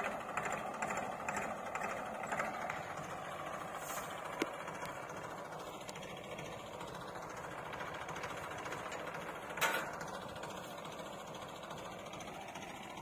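Tractor engine running steadily, driving a hitched threshing machine with a continuous mechanical hum. A single sharp knock sounds near ten seconds in.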